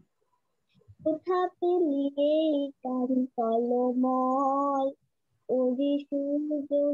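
A child singing a song over a video call, in phrases of long held notes. The singing starts about a second in and pauses briefly near five seconds.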